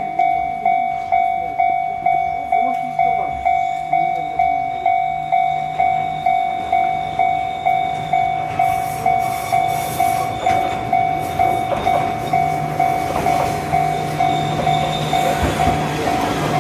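Japanese level-crossing warning bell ringing about twice a second. From about halfway an Enoden electric train approaches and passes, its running noise rising until it nearly covers the bell near the end.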